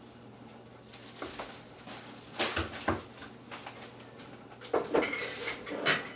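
Kitchen handling sounds: a few scattered knocks and clatters of containers and utensils, with a busier cluster of clinks near the end.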